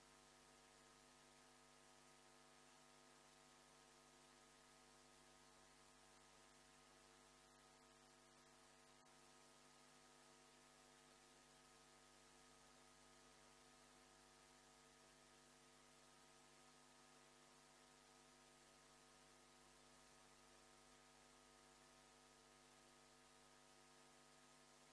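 Near silence with a faint, steady electrical hum made of several even tones.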